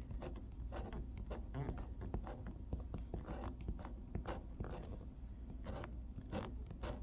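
A scratch-off lottery ticket's coating being scraped away in many quick, irregular strokes.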